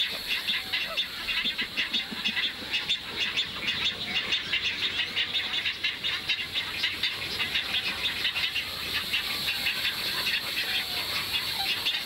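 Dense, steady chorus of high, rapid chirping and chattering from many birds at a nesting colony, with a few short lower calls here and there.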